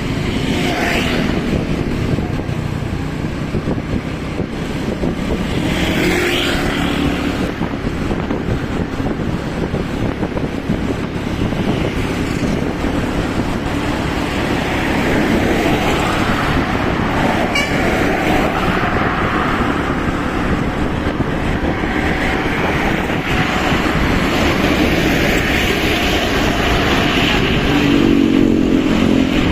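Steady road traffic noise: engines and tyres of passing vehicles, with a pitched tone rising near the end.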